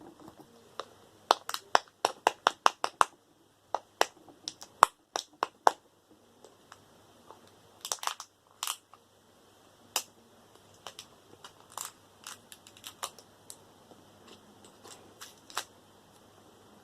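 Sharp clicks and snaps of a plastic Bluetooth speaker being taken apart by hand. Quick runs of clicks come in the first few seconds and again around eight seconds in, with fainter scattered clicks after.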